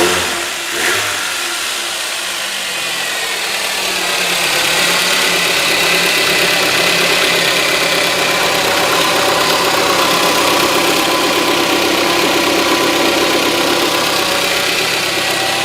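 VAZ-2110 8-valve four-cylinder engine running steadily with its crankshaft pulley bolt freshly tightened: a completely different sound, without the knock a loose pulley bolt makes. A couple of brief clicks near the start, and the engine gets a little louder about four seconds in.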